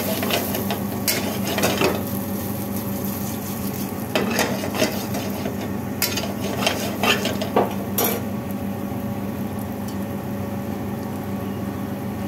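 Diced potatoes sizzling in hot oil with cumin seeds in a stainless steel pan, while a metal spoon scrapes and clinks against the pan in short bursts during the first eight seconds, then the frying goes on more steadily.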